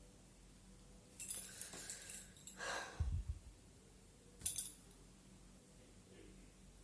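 A woman yawning: a long breathy intake of air that ends in a short voiced sound and a dull bump. About a second later comes a single sharp click.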